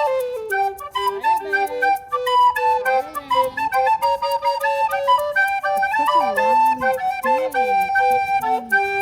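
Background music: a melody of held notes over light ticking percussion.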